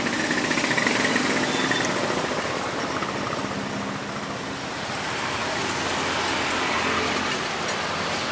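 Road traffic passing close by: vehicle engines and tyre noise, swelling about a second in and again around six to seven seconds.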